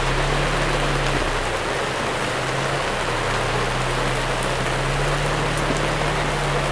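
Heavy rain pouring down on a tent stall's canopy, a steady loud hiss, with a steady low hum underneath.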